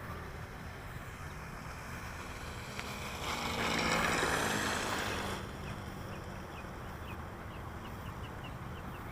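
Small glow engine of a large RC sport plane (O.S. 91 FX) running at idle on its landing approach, growing louder for a couple of seconds near the middle, with a rushing sound as the plane comes past. The engine keeps running through the landing after a new remote needle valve and carburettor O-ring.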